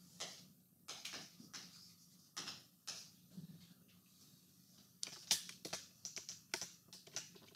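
Chalk tapping and scratching on a blackboard as words are written, in short sharp strokes that come faster and louder about five seconds in.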